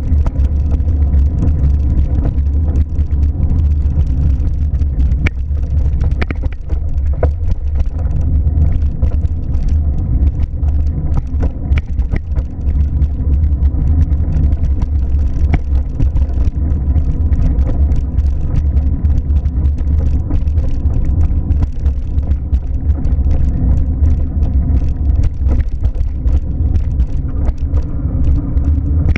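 Steady low rumble of a car, with scattered light clicks and knocks throughout.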